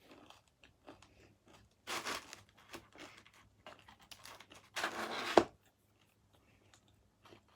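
Close-miked pizza eating: crisp crust crunching and tearing in two louder bursts about two and five seconds in, with small mouth clicks between.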